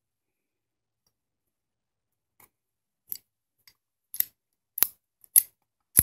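Freshly lubricated nickel boron AR-15 bolt carrier group being worked by hand, giving a series of sharp metal clicks, about eight over the last three seconds, the loudest near the end.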